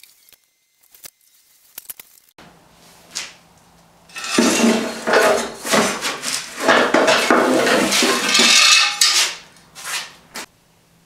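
Old metal brake lines, fuel line and wiring clattering and scraping as they are dragged out from under an MG and across a concrete floor: a few light clicks, then about five seconds of dense metallic rattling, with a couple of single knocks near the start and end.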